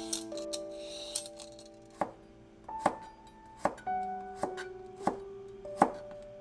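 A cucumber being peeled with a hand peeler, a short rasping scrape in the first second. Then a chef's knife slices it on a plastic cutting board, about six crisp knocks spaced under a second apart, over soft background music with piano-like notes.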